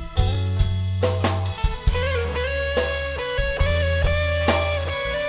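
Campursari band playing an instrumental passage: drum kit strokes over held bass notes, with a melody line of sustained notes on guitar.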